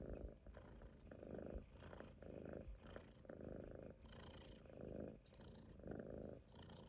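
Munchkin kitten snoring in its sleep, faint: each breath is a soft rattling buzz followed by an airy hiss, repeating a little more than once a second.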